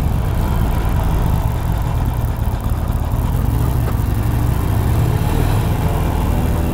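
Harley-Davidson Sportster Iron 883's air-cooled V-twin running steadily at low speed, its exhaust rumble echoing inside an underground parking garage.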